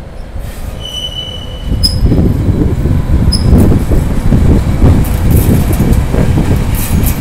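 Freight train passing, its wheels rumbling over the rails; the rumble grows louder about two seconds in. A few short, high wheel squeals come in the first few seconds.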